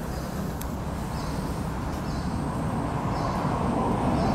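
Outdoor ambience: a steady low rumble and hiss, with a short high chirp repeating about once a second and a single click about half a second in.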